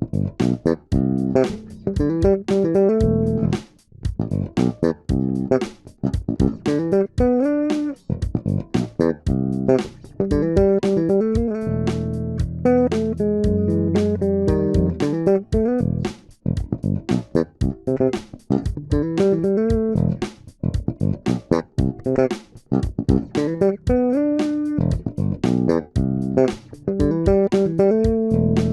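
Electric bass guitar fitted with an active preamp circuit, played solo in a fast run of sharply attacked notes with short breaks between phrases.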